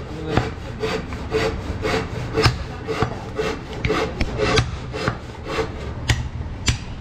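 Rhythmic blade strokes on a wooden chopping block, about three a second, as meat and bone are worked at a butcher's stall.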